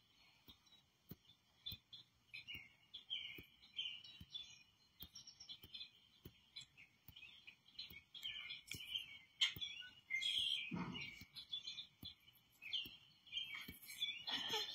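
Recorded birdsong played through a television's speakers: many short chirps and twittering calls, with a brief louder low rustle about ten and a half seconds in.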